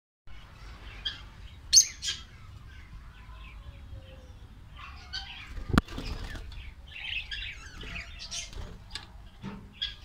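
Budgerigars chirping in short, scattered calls, with a sharp knock a little before six seconds in.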